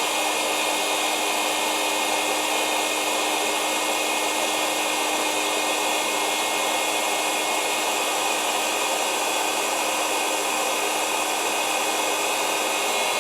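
Electric heat shrink gun blowing steadily, with a steady low hum under the rush of air, while it heats a solder-seal heat-shrink wire connector until the solder band melts and flows.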